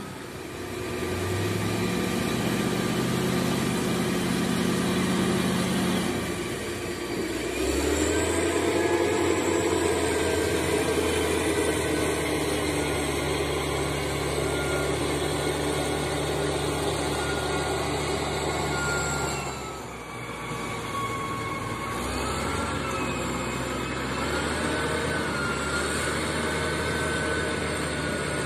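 Heavy diesel engines of a dump truck stuck in mud and a crawler bulldozer pushing it from behind, running steadily under load. The engine note shifts about eight seconds in and dips briefly near twenty seconds, and a high whine wavers up and down over it.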